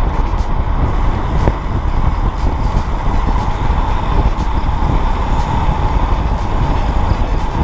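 Steady wind and road rumble buffeting a helmet chin-mounted action camera while riding fast downhill.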